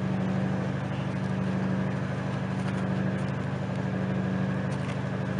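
A steady, low engine hum, running evenly at idle.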